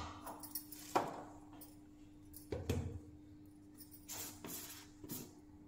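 A few scattered light clinks and knocks of steel kitchen utensils and containers being handled on a counter, over a faint steady hum.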